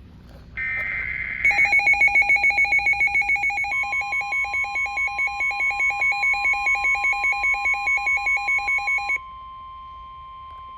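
Emergency Alert System warning tones: a short buzzing data burst, then a rapid pulsing electronic alarm beep. A few seconds in, a steady high tone joins it: the NOAA Weather Radio warning alarm tone. The beeping stops about nine seconds in while the steady tone goes on.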